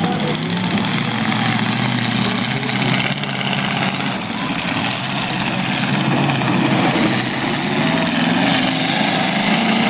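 Demolition derby cars' engines running together, their pitch drifting up and down as they rev and idle, over a steady wash of noise.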